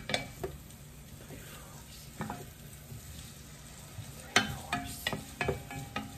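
Wooden spoon stirring onion and garlic frying in bacon grease in an enamel pot, over a low sizzle. Near the start and again from about four seconds in, the spoon knocks against the pot in quick taps.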